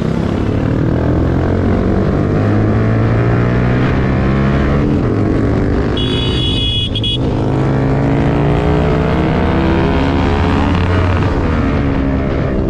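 Motorcycle engine running on the move, its pitch rising and falling as the speed changes. About halfway through, a high-pitched tone sounds for just over a second.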